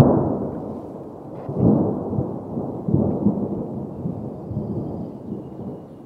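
Low rumbling noise in several swells: the loudest at the start, more about two and three seconds in, then dying away near the end.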